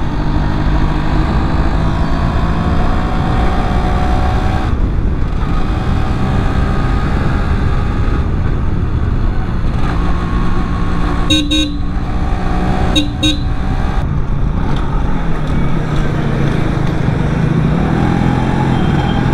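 Yamaha RX135 two-stroke single-cylinder motorcycle engine running under way, its pitch climbing for the first few seconds as it accelerates, with a brief break in the note about five seconds in. Wind rushes on the microphone. A horn sounds twice around the middle, two short honks a little over a second apart.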